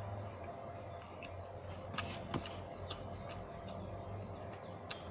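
Close-up chewing of a deep-fried snack: irregular mouth clicks and crunches, the sharpest about two seconds in, over a steady low hum.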